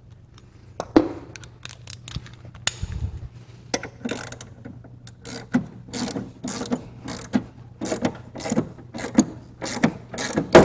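Hand ratchet clicking in quick repeated strokes, about three clicks a second, as the pulley nut is run down to tighten the belt; a single knock and a few metal clinks come before it.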